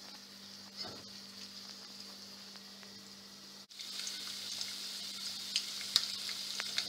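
Oil sizzling under unpopped popcorn kernels in a pot on high heat, a steady hiss that gets louder about four seconds in, with scattered light crackles.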